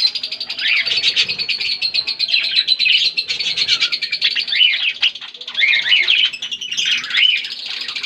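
Budgerigars chattering and chirping continuously: a dense stream of quick, rising and falling chirps and warbles.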